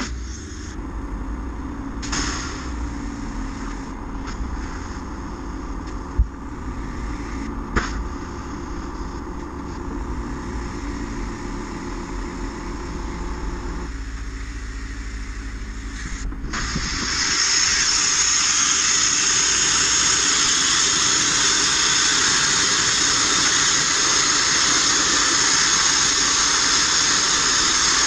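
Abrasive media blasting: about seventeen seconds in, a loud steady hiss of air and grit from the blast nozzle starts and holds steady as the van's floor panels are blasted. Before it there is only a steady low rumble, with two sharp knocks about six and eight seconds in.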